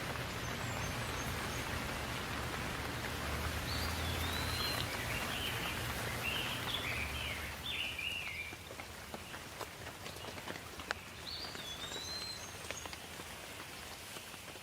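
Steady rain falling, with scattered drops ticking, while a bird chirps in short phrases about a quarter of the way in and again near the end. A low rumble under the rain fades out about halfway through.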